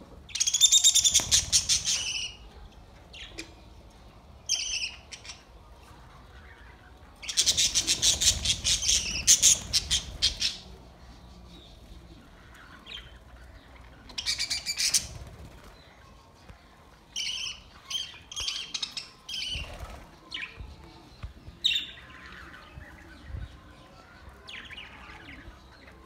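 A flock of budgerigars chirping and chattering in bursts of rapid, high calls. The loudest bouts come at the start and from about seven to ten seconds in, with shorter scattered calls after that.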